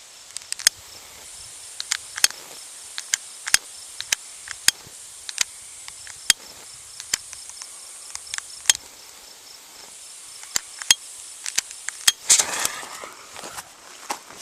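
Crickets chirping steadily, with a string of sharp, irregular pops and crackles about one or two a second, and a brief noisy rush about twelve seconds in.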